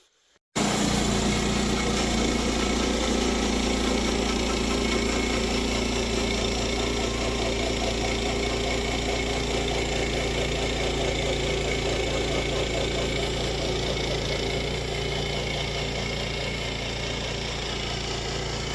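Portable band sawmill's engine running steadily. It cuts in abruptly about half a second in and holds an even level.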